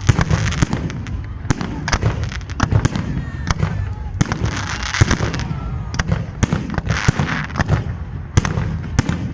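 Festive fireworks display: repeated sharp bangs of aerial shells bursting, several a second at times, over a continuous low rumble, with crackling sparkle effects about five and seven seconds in.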